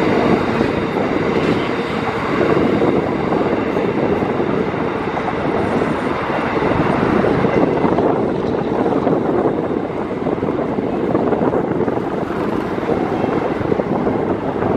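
Empty coal train wagons rolling along the rails, a steady noise of wheels on track that continues without a break.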